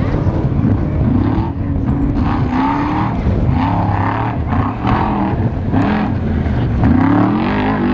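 Off-road race vehicle engine revving, its pitch repeatedly rising and falling as the throttle is worked.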